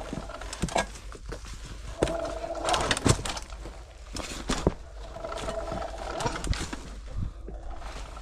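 Scattered knocks, clicks and rustling as a mountain bike is pushed through overgrown, stony trail. Twice, for a second or two each, a drawn-out steady-pitched groaning tone sounds over them.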